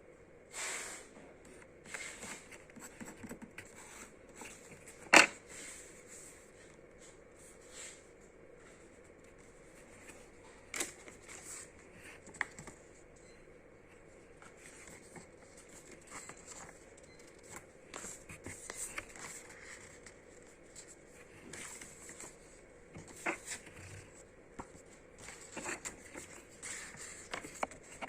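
Sticker sheets and packaging being handled: scattered rustling, crinkling and scraping, with one sharp click about five seconds in.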